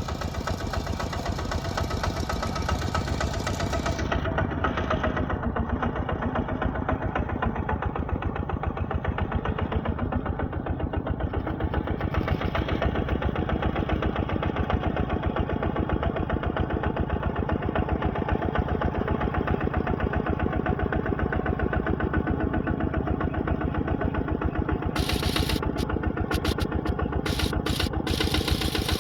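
Heavy earthmoving machine's diesel engine running steadily with an even, fast beat.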